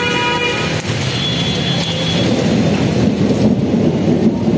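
Heavy storm rain with a continuous low rumble. A pitched tone sounds over it in the first two seconds, then the rumble grows slightly louder.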